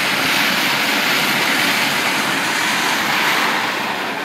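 Plastic kayak hull scraping along a concrete street as it is towed by a rope, a loud steady rushing scrape.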